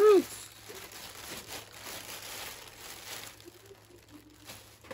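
Thin plastic bags crinkling and rustling as they are handled, loudest in the first three seconds, then fading.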